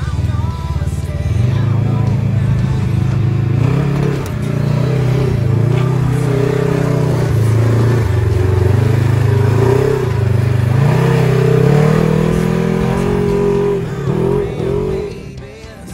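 Polaris RZR XP 1000 side-by-side's engine running and revving up and down as it crawls over rock ledges, mixed with background music.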